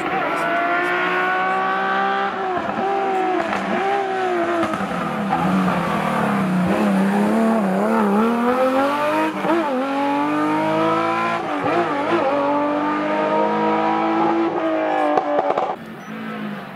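Air-cooled flat-six of a Porsche 911 rally car at racing speed: the engine note drops in steps as it brakes and downshifts into a hairpin, then rises again in several sweeps as it accelerates away through the gears. The sound falls away sharply near the end as the car goes out of earshot.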